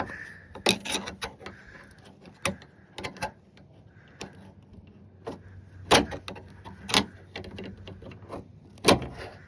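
Irregular sharp clicks and knocks of a flathead screwdriver against the tailgate latch and its plastic rod clip as it is pried off, the loudest about six seconds in.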